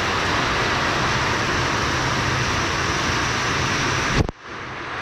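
Heavy rain pouring down, a steady loud hiss. About four seconds in, a sharp knock is followed by a brief dropout, and the rain comes back.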